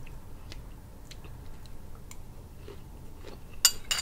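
Metal spoon clicking against a small glass bowl with soft eating sounds; two sharp clinks near the end are the loudest.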